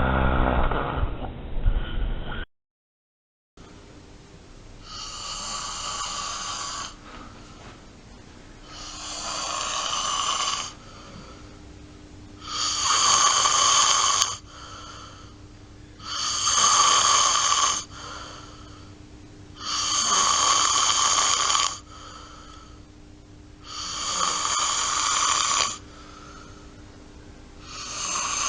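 A person snoring in a steady rhythm: a rasping snore roughly every four seconds, seven in all, the first few growing louder, over a faint steady hum. Before that, a short stretch of another snore clip cuts off about two and a half seconds in, followed by a second of silence.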